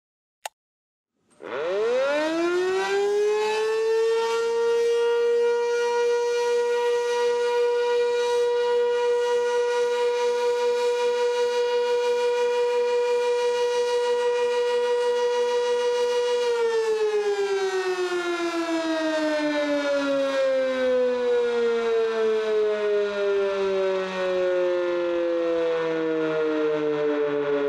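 Sentry Siren 16V1T-B electromechanical tornado siren sounding its test. It winds up about a second in to one steady, loud tone, holds it for about fifteen seconds, then winds down in a long falling pitch.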